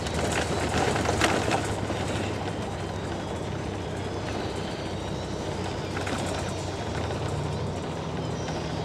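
Steady engine and road noise from inside a moving vehicle, with a low hum throughout and a few short rattles about a second in.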